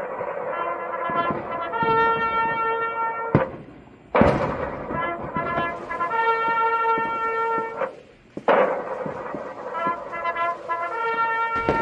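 Music led by brass. The same short phrase repeats about every four seconds: a sharp hit, a few quick notes, then one held note that cuts off.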